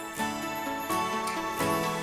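Background music: a melodic track with bright bell-like notes over a beat.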